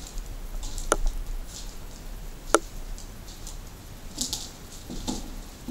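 Footsteps scuffing and crunching over a debris-strewn floor, with a couple of sharp clicks or snaps, over a low steady hum.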